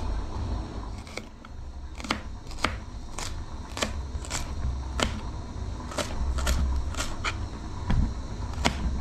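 Kitchen knife slicing spring onion stalks on a plate, each stroke a sharp tap of the blade against the plate, about one or two a second and quicker in the second half, over a low rumble.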